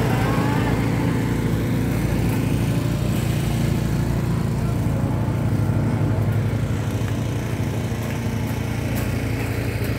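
Small engine running steadily, powering the site machinery of a concrete slab pour. Its drone eases slightly about seven seconds in.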